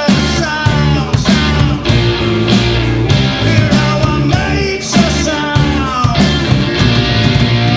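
Live rock band playing a song on guitar, bass guitar and drums, with sliding melody lines over a steady bass and drum pulse.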